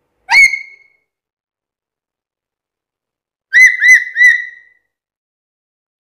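Black-capped lory giving loud whistled calls, each rising then falling in pitch. It calls once right at the start, then three times in quick succession about three and a half seconds in.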